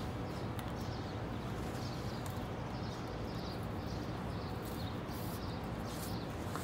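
Steady low machine hum, with faint short high-pitched chirps recurring about once or twice a second.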